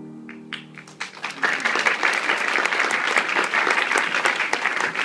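The boys' choir's last held note fades out in the first second while a few scattered claps start, then the audience breaks into steady, dense applause.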